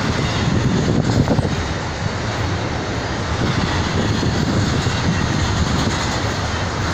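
Norfolk Southern double-stack intermodal train's container well cars rolling past: a steady, loud rumble of steel wheels on the rails.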